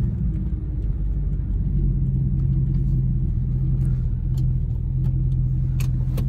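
Ford Mustang's 4.6-litre V8 running steadily at low revs, heard from inside the cabin as the car reverses slowly. A few light clicks come near the end.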